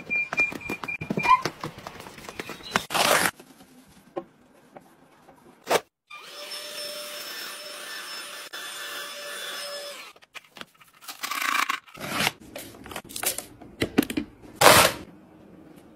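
A cordless handheld vacuum cleaner runs steadily for about four seconds, a motor hum with a fixed whine. Before and after it come short clicks and handling knocks, the loudest a sharp click near the end.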